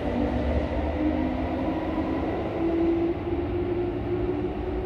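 Kintetsu electric commuter train pulling away from the platform, its VVVF inverter traction motors giving a whine whose pitch rises slowly over the first three seconds, over a steady low rumble of the train.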